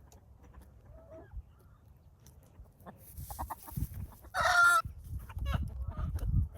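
Domestic chickens clucking, with one loud, short squawk a little past four seconds in, followed by low knocking and rustling.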